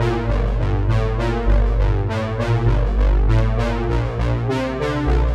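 Background music: synthesizer and keyboard chords over a deep, moving bass line, with a beat.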